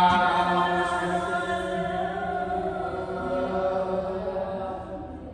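Chanted singing: one voice holding a long, slightly wavering note that slowly fades away near the end.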